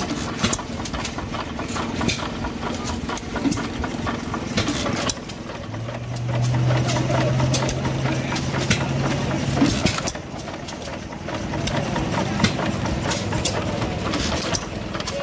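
1929 Jaeger Hercules Model S hit-and-miss gas engine running, with many irregular sharp clicks from its valve gear and igniter. A steady low hum starts about six seconds in and stops near ten seconds.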